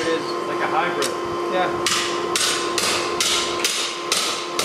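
Hammer blows on steel held in tongs on an anvil, a lawnmower blade being forged into a machete by a striker. There is one blow about a second in, then six ringing blows at about two a second, over a steady hum.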